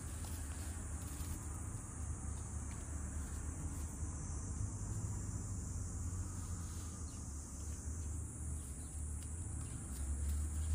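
Insects trilling steadily as a continuous high-pitched hum, over a low rumble.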